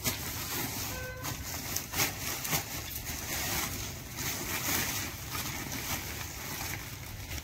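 Woven plastic sack rustling and crinkling as it is handled and shaken, with loose dry soil pouring and sliding out onto a concrete floor.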